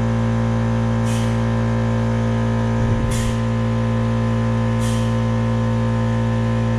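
Air-operated bulk grease pump stroking with a short air hiss about every two seconds as grease is forced into an excavator bucket-pin fitting, over a steady machine hum. The pump cycles only as grease is drawn, a sign it is now holding pressure rather than pumping continuously.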